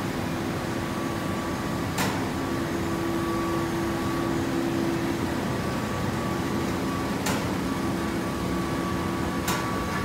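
Steady mechanical hum of a running full-automatic horizontal hay baler plant, with a sharp knock about two seconds in and another about seven seconds in, and a quick run of ticks near the end.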